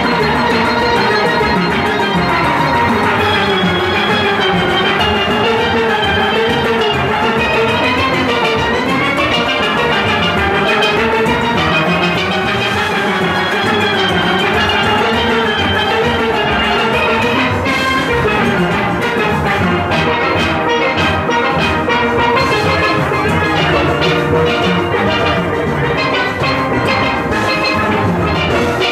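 Full steel orchestra playing: many steel pans of different ranges sound weaving melody and chords together, over the steady beat of the drums and percussion of the steelband's engine room.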